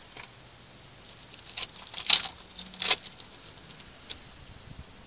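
Rustling and crinkling of a trading-card pack and its cards being handled: a few short, scratchy crackles, loudest about two and three seconds in.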